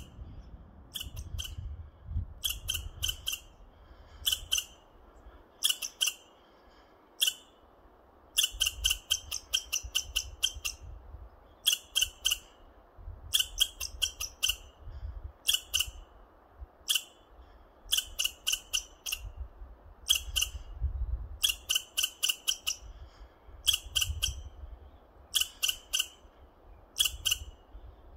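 American red squirrel chattering: short bursts of rapid clicking rattles, about one a second, the scolding call it gives at an intruder in its territory.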